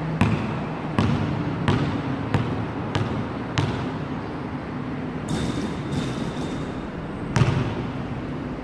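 Basketball bouncing on a hard court as it is dribbled, about one bounce every 0.7 s for the first four seconds. Then a pause while the ball is held, and one louder bounce near the end before the shot.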